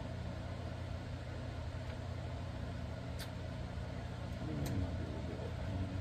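A steady low hum, with two light clicks about three and four and a half seconds in as small parts are worked into a Penn Peer 209 fishing reel's side plate with a small screwdriver. Around the second click there is a short low sound sliding down in pitch.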